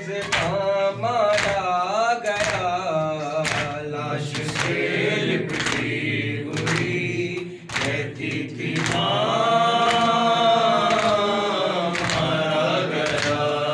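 Men chanting an Urdu noha (lament) together, a lead voice joined by others, over regular strikes of open hands on chests (matam) about once a second.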